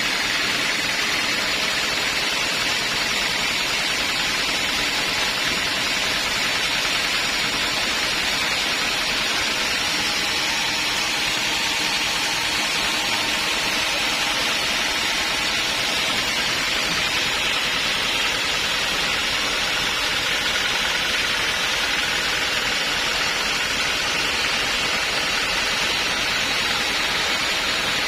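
Sawmill saw running steadily through teak wood, a constant dense noise with no breaks or changes.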